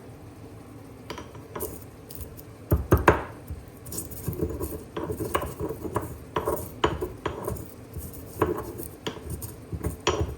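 Dishes and cutlery clinking and knocking as they are handled, a string of sharp clatters with the loudest about three seconds in.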